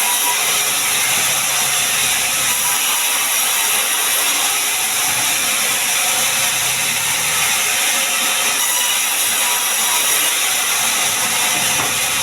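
Sawmill machinery cutting sengon wood, running as a loud, steady, high-pitched mechanical noise.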